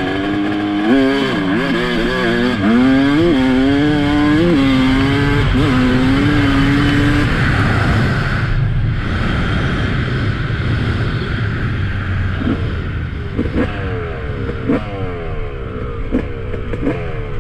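A 2007 Yamaha YZ250's single-cylinder two-stroke engine revving: its pitch swings up and down, then holds one steady high note for a couple of seconds. It gives way to a broad roar, and in the last few seconds comes a run of quick falling-pitch sweeps as the revs drop.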